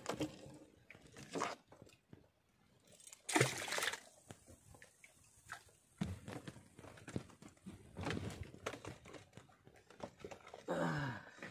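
Handling noises of a handline being worked by hand on a small wooden outrigger boat: scattered rustles, clicks and light knocks, with one louder rasping scrape about three seconds in.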